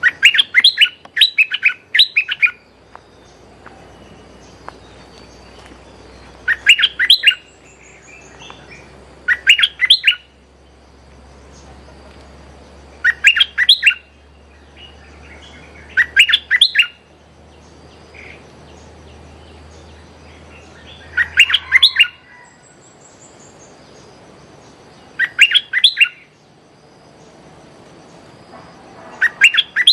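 Caged stripe-throated bulbul (merbah lekir) calling as a decoy: loud bursts of quick, chattering notes, about eight bursts, each repeated every three to four seconds.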